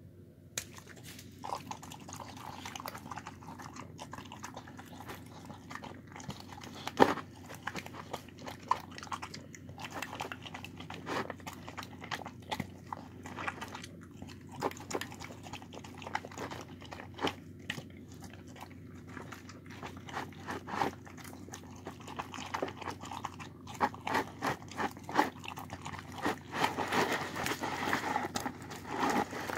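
A dog eating a bowl of rice, chicken, carrot and watermelon: irregular chewing, smacking and clicking of jaws and bowl, with one loud click about seven seconds in, growing denser and louder near the end.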